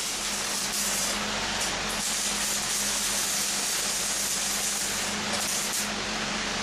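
Steady, loud hiss of an air-powered spraying or blasting tool, brightening briefly a few times, over a steady low motor hum.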